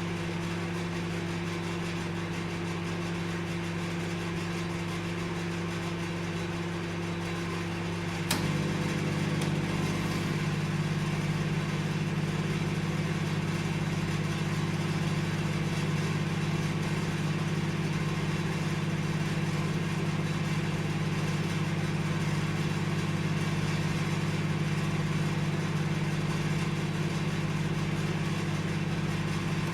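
Microwave oven running with a steady low hum and whir. About eight seconds in there is a single click, after which the hum changes tone and grows slightly louder.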